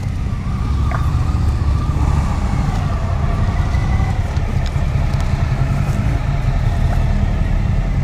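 Suzuki V-Strom 1000's 1037 cc V-twin engine running steadily, a continuous low rumble with no change in pitch.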